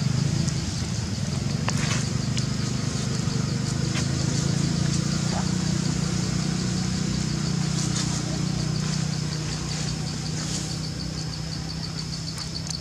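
A steady low engine-like hum runs throughout, with a steady high insect drone over it that pulses faintly near the end.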